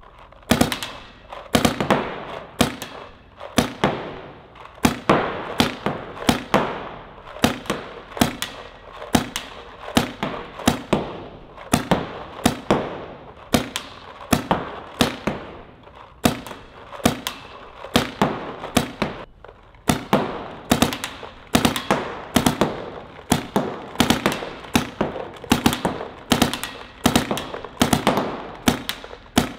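DLX Luxe X electropneumatic paintball marker firing a steady string of shots, about one to two a second, each with a short echo, with a brief pause about two-thirds of the way through.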